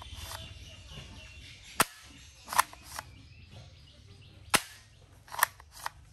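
Plastic toy pump-action shotgun being worked by hand: six sharp plastic snaps and clacks, the second and third and the last two coming in quick pairs.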